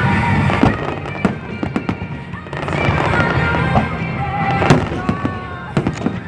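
Fireworks bursting in a rapid series of sharp bangs, the loudest about three-quarters of the way through, with music playing underneath.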